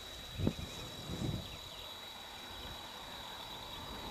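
Open-field ambience with a faint steady high-pitched tone, broken by two short low thumps, one about half a second in and a longer one about a second later.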